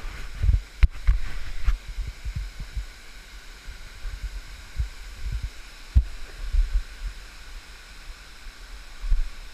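Steady rush of a small waterfall, with irregular low thumps and a couple of sharp knocks from a handheld action camera being moved about.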